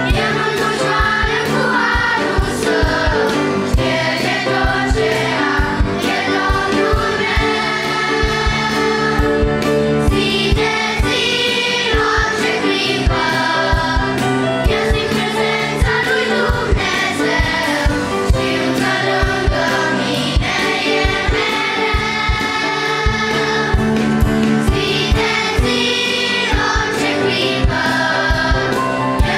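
Children's choir singing a Romanian Christian hymn, accompanied by piano and a drum kit keeping a steady beat.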